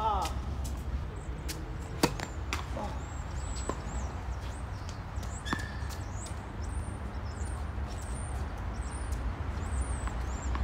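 Tennis ball struck by rackets during a doubles rally: one sharp pock about two seconds in, then a few fainter hits. Small birds chirp high and repeatedly over a steady low rumble.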